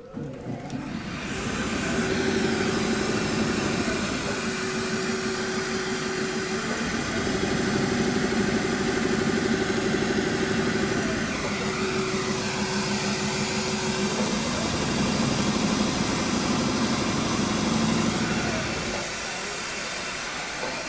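Multi-function CNC upholstery machine running, its perforation punching heads working through a car-seat hole pattern: steady mechanical noise with a low hum that stops and starts again several times, easing off near the end.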